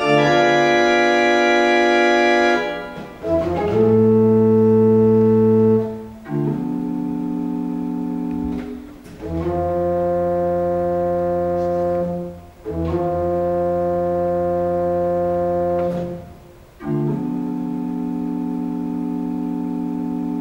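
Pipe organ playing slow, sustained chords over a low bass. Each chord is held about three seconds, with a short break before the next.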